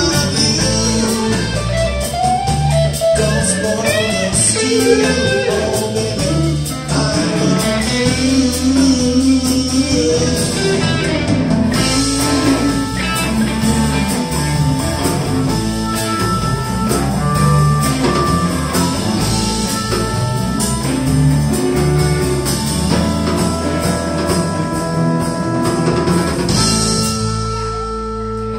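Live electric blues band playing: blues harmonica, two electric guitars, bass and drum kit. The harmonica bends notes over the band through the first half, then the band holds long chords and closes the song on a final held chord near the end.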